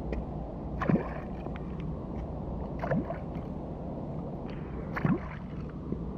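H&H plastic popping cork with rattle beads jerked across the water three times, about two seconds apart. Each pop is a short splash with a quick rising gulp and the beads clacking against the plastic body.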